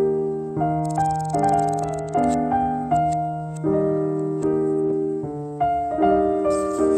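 Solo piano music: a gentle melody over held bass notes, with new notes struck about every two-thirds of a second and each one fading.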